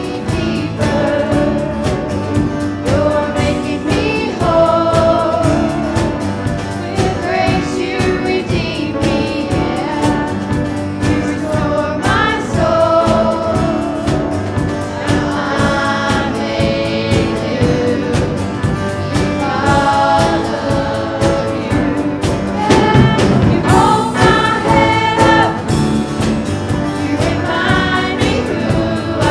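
Choir singing a praise-and-worship song over instrumental accompaniment, with sustained notes and vibrato.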